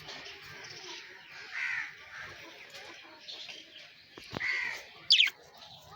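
Birds calling outdoors: a few calls about two seconds in and again near four and a half seconds, then a loud, quick, high chirp about five seconds in.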